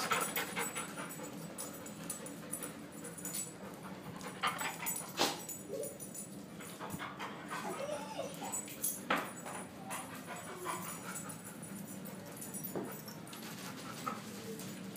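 Dog right up at the microphone giving a few brief, soft whimpers, with scattered knocks and rubbing as the phone is bumped and handled against it.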